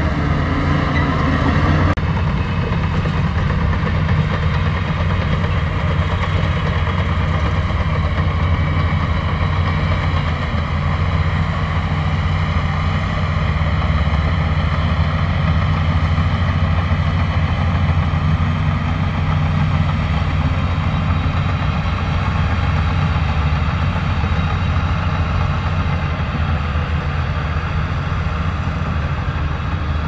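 Diesel engine of a Shantui DH17C2 crawler bulldozer running steadily as the dozer pushes dirt, a constant low drone.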